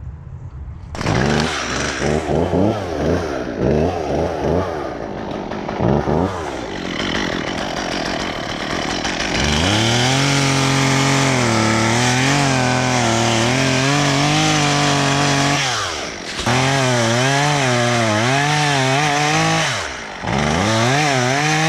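Chainsaw engine coming in about a second in and revved in short blips, then held at high revs with its pitch wavering under load, as when cutting into wood, easing off briefly twice near the end.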